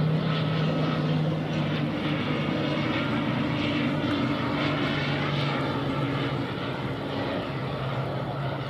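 ATR 42 twin-turboprop airliner flying low on final approach, its propellers and engines giving a steady low drone with a pulsing, shimmering noise above it.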